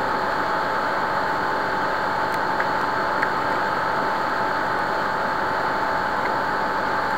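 Steady background hiss with a thin, constant high-pitched hum running through it, unchanging throughout: the noise floor of the recording setup, with no other clear sound.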